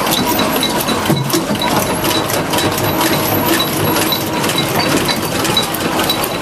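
Automated stator production machine running, with a fast, even clicking of about four clicks a second over a steady mechanical noise.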